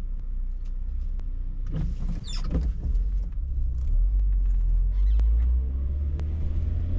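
Car driving, with a steady low engine and road rumble inside the cabin that swells about four seconds in. A few faint clicks and a short squeak about two seconds in.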